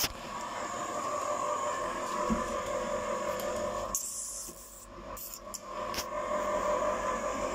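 Home ice cream maker's motor running with a steady mechanical whine. It drops quieter for a moment around the middle, with a few short knocks.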